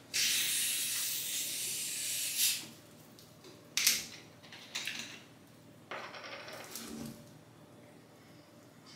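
Cap being twisted off a 2-litre plastic bottle of fizzy drink: carbonation gas hisses out for about two and a half seconds as the seal breaks, followed by a few clicks and shorter hisses as the cap is loosened the rest of the way.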